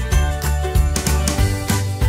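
Background music with a steady beat and jingling percussion.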